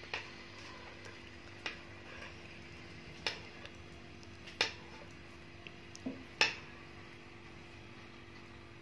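Metal knitting needles clicking against each other as stitches are worked: about six sharp clicks, roughly one every second and a half, stopping after about six and a half seconds, over a faint steady hum.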